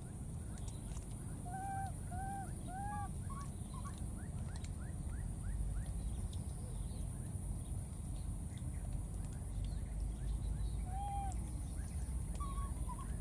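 Short arched animal calls, three in quick succession about a second and a half in and another near the end, with a few faint rising chirps between. A steady low rumble and a constant high hiss run underneath.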